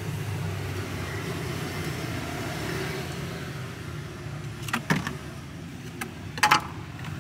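Steady low rumble of motor traffic. There are a few sharp knocks about five seconds in and a louder clink about six and a half seconds in.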